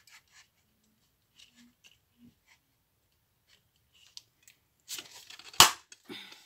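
Handheld hole punch closing through cardstock: faint paper handling, then rustling and one sharp, loud snap of the punch about five and a half seconds in, followed by a brief rustle of the card.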